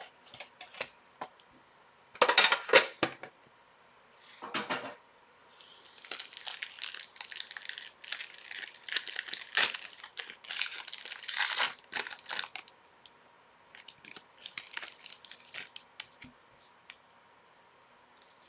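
Hockey card pack wrappers being torn open and crinkled by hand, in several bursts with short pauses, the longest and loudest stretch from about six to twelve seconds in.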